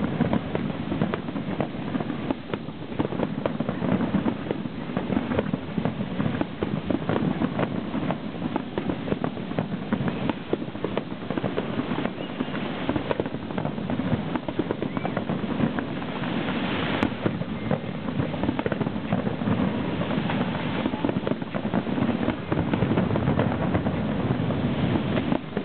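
Aerial fireworks bursting in a dense, continuous run of pops and bangs.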